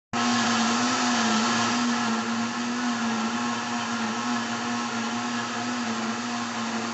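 Mondial countertop blender running at a steady speed, its motor humming with a dense whir as it blends a liquid chocolate pudding batter.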